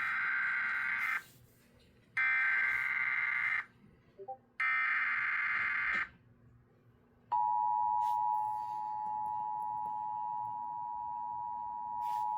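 Emergency Alert System activation: three short bursts of the SAME digital header, each about a second long and a second apart, then about seven seconds in the steady two-tone EAS attention signal starts. Together they herald a flash flood warning.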